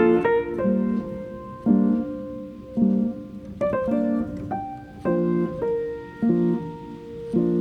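Background music: piano playing repeated chords with a short melody over them.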